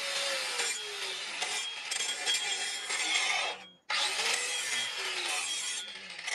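Angle grinder with an abrasive disc grinding the edge of a steel cleaver blade: a harsh grinding hiss over the motor's whine, which drops in pitch twice as the disc is pressed into the metal. The sound cuts out for a moment about two-thirds of the way through.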